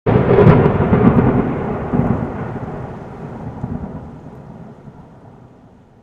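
A sudden, loud, deep rumble like thunder that slowly dies away over about five seconds.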